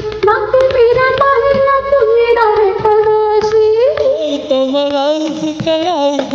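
Hindi film-song music: a high melody of held and gliding notes. A second, lower melodic line joins about four seconds in, with wavering notes near the end.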